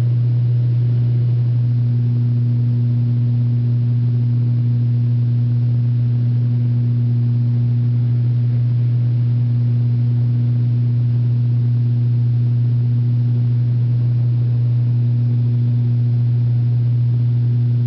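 Steady drone of the ATR 72-500's Pratt & Whitney PW127 turboprops and propellers heard inside the passenger cabin: a loud, low hum at one unchanging pitch over a faint rushing hiss.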